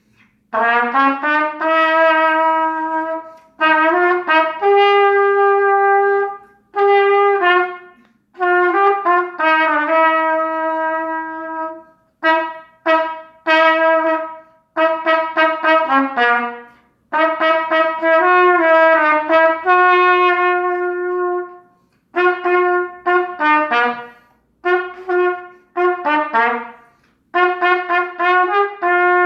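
Solo Bach TR300 trumpet playing a melody in a series of phrases, with short pauses for breath between them. It mixes held notes with quicker moving passages.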